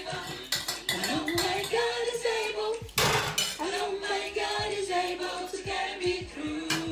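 Music with a singing voice holding long notes, over light clinks of dishes and cutlery. A brief rush of noise comes about three seconds in.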